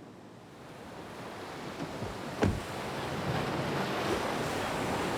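Ocean surf on the beach: a rush of waves growing steadily louder, with a single sharp thump about two and a half seconds in.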